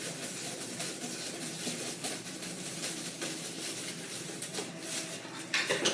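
Crinkling and rustling of a foil emergency blanket being handled and taped down, with a cluster of sharper crackles near the end.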